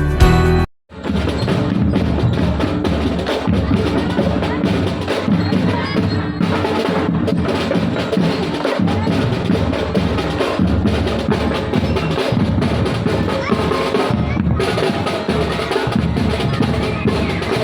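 School drum band's marching percussion: snare drums and bass drums playing a busy, driving rhythm, starting after a brief drop-out under a second in.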